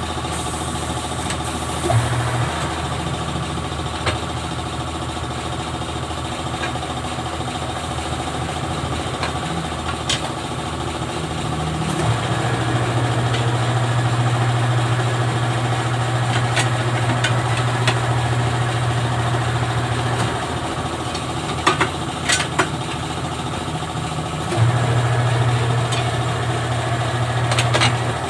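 Tyre-changer turntable motor running in two long spells, the second near the end, as a tyre is worked off its rim, with a few sharp metal clanks over a steady machine hum.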